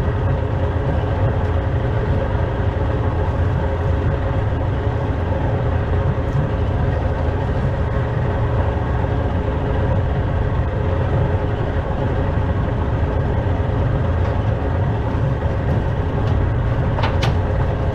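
Outboard motor running steadily as the boat trolls, with a constant hum over rough wind and water noise.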